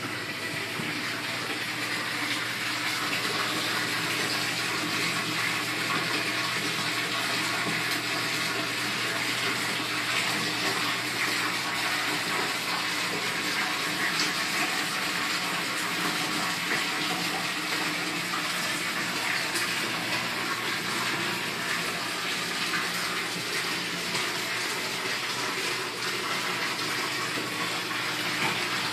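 Aquarium water splashing and bubbling steadily from its circulation or aeration, over a low steady hum from the pump.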